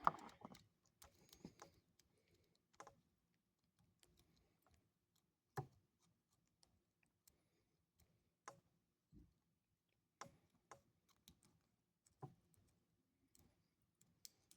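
Near silence broken by scattered faint clicks and taps of lock picks and a tension wrench working in a Brinks padlock, one every second or two, the clearest about halfway through.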